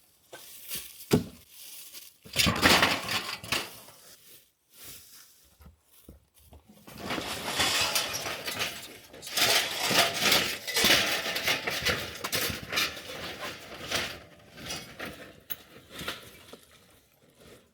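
Pieces of scrap metal and debris clinking and clattering as they are picked up and dropped, in a short bout about two seconds in and a longer, busier one from about seven seconds to fifteen.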